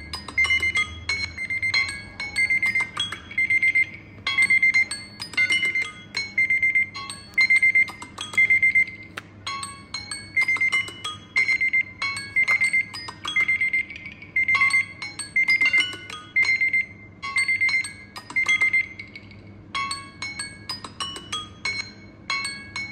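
Timer alarms of three smartphones, an LG Wing and two Samsung Galaxy phones, ringing at once: a repeating high beep pattern in short bursts with brief gaps, overlapping chime-like melodic tones.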